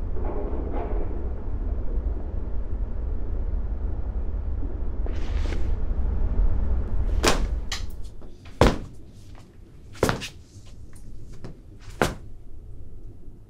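A low rumbling drone that fades out about seven seconds in, followed by four sharp knocks spaced a second and a half to two seconds apart, each ringing briefly.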